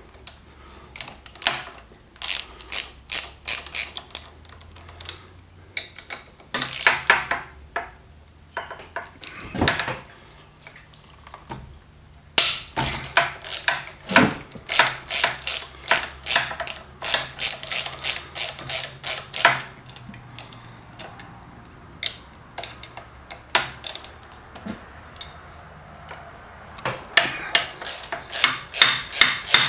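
Hand socket ratchet clicking in runs of quick back-and-forth strokes with pauses between, as bolts on a motorcycle's front fender bracket are loosened.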